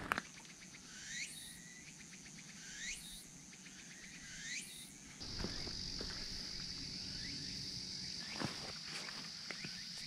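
Insect sounds on a late-summer mountain top: three short rising calls about a second and a half apart, then, about halfway through, a steady high-pitched insect drone begins and keeps on.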